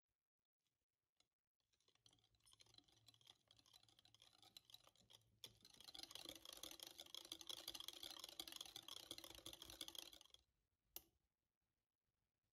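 Wire balloon whisk beating thick cheesecake batter in a glass bowl, the wires scraping and clicking quickly against the glass. It starts lightly about two seconds in, grows faster and louder about halfway through, and stops shortly before a single sharp tap near the end.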